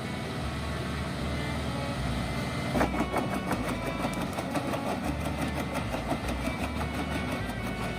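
A tractor-PTO-driven wood chipper running with its tractor engine, with a sharp crack just before three seconds in followed by a rapid run of clicks as it works.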